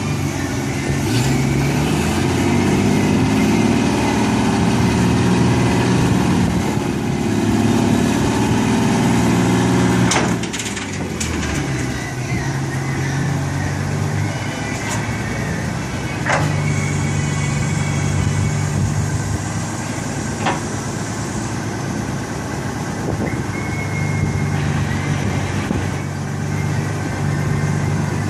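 GMC concrete truck's engine running, louder and faster for about the first ten seconds, then dropping to a steadier, lower run. A few sharp clicks come through afterwards.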